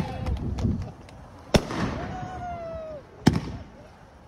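Small fireworks going off: three sharp bangs about a second and a half apart.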